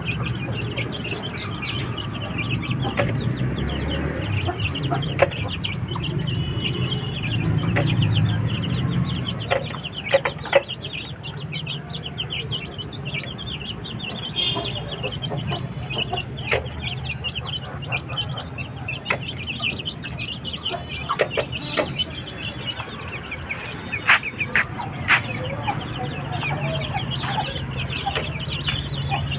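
A flock of chickens clucking, with many short high calls and scattered sharp clicks throughout.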